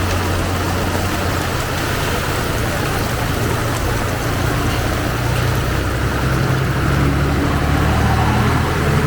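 A motor vehicle's engine running close by, growing louder and rising slightly in pitch from about five seconds in, over the steady hiss of heavy rain.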